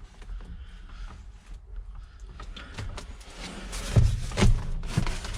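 Handling noise: quiet scuffing and rustling, then a few sharp knocks about four, four and a half and five seconds in, as things are moved about.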